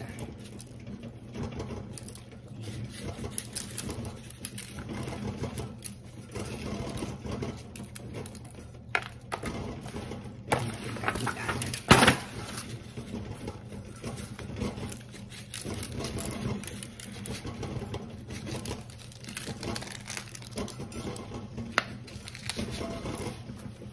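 Hands rubbing seasoning into a raw whole chicken in a disposable aluminium foil tray: soft squishing of the meat and crinkling of the foil, with a louder clatter from the tray about halfway through as the chicken is turned over. A steady low hum sits underneath.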